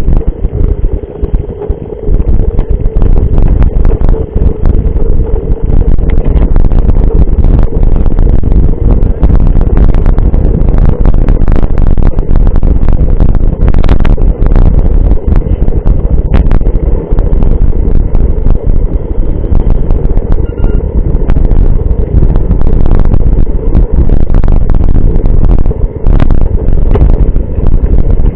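Mountain bike ride picked up by a GoPro-style action camera's microphone: heavy wind buffeting and road rumble with frequent knocks and rattles from the bumpy trail.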